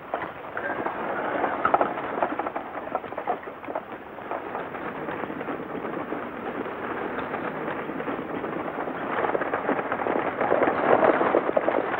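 Hoofbeats of a team of horses at a run, with the rattle of a horse-drawn stagecoach: a dense clatter of many quick knocks that grows louder about nine seconds in.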